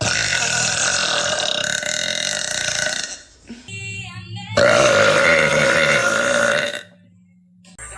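A woman belching: two long, loud burps, the first about three seconds long and the second about two seconds, with a short pause between them.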